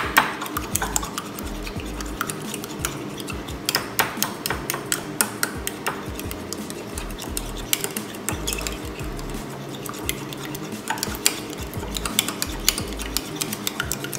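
A metal fork beats raw egg in a ceramic mug, its tines clinking rapidly and unevenly against the sides of the mug.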